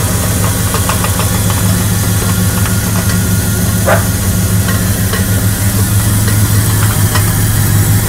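2000 Dodge Dakota's 5.9 L (360) V8 running steadily, with a strong low hum and repeated light ticks, plus one brief sharp sound about four seconds in. The owner says the noise sounds just like a bad water pump, even though the pump was replaced not long ago.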